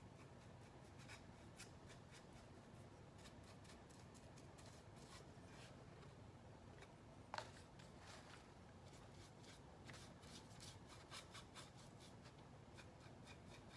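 Near silence with faint scratchy paintbrush strokes and light taps as white paint is brushed onto a small sign frame; one slightly louder tick about seven seconds in.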